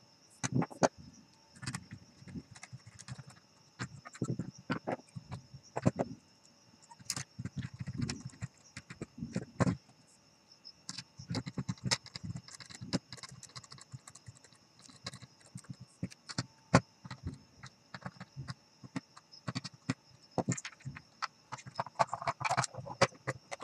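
Irregular clicks, taps and knocks of hard plastic parts and a circuit board being handled and fitted together as a handheld digital multimeter is reassembled by hand.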